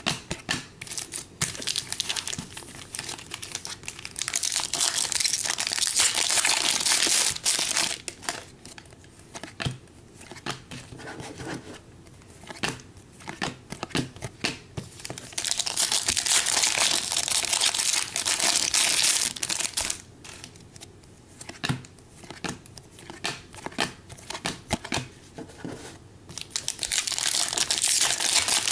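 Foil wrappers of Panini Prizm trading-card packs crinkling and tearing as packs are opened. This comes in three long stretches, about four seconds in, about sixteen seconds in and near the end, with light clicks and taps of cards being handled in between.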